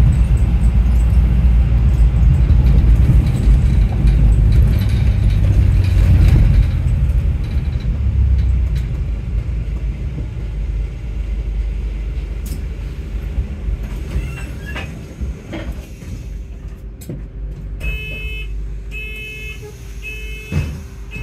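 Stagecoach London bus 13067 on the move, heard from inside the saloon: a heavy drive and road rumble that eases off after the first several seconds as the bus slows. Near the end a steady hum comes in, with a run of about four short, evenly spaced beeps.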